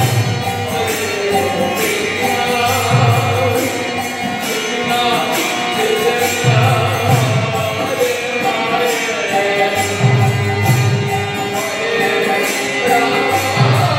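Kirtan: a group of voices chanting together, with jingling hand cymbals keeping a steady beat and a low drum sounding in phrases.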